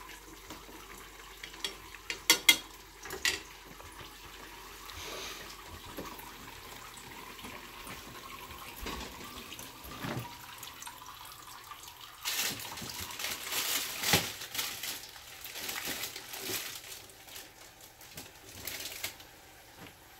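Kitchen work at the stove: a few sharp clinks of utensils against cookware about two seconds in, then several seconds of splashing, hissing liquid noise from about twelve seconds in.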